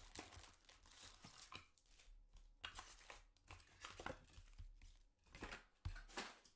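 Foil-wrapped trading-card packs crinkling and scraping as they are pulled out of a cardboard hobby box and stacked on a table. The sound is faint, a run of short, irregular crackles.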